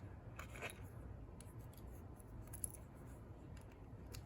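Faint handling of a laminated padlock and its key: a brief scrape about half a second in, then a few light metal clicks.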